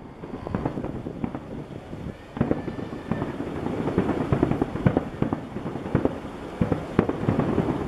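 Aerial fireworks shells bursting in rapid succession, a dense run of bangs that grows thicker and louder about two and a half seconds in.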